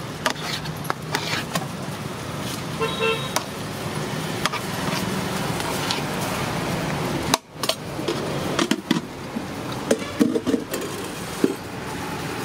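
Roadside street noise with traffic and a short vehicle horn toot about three seconds in, over scattered clinks and scrapes of a steel serving spoon against steel rice pots.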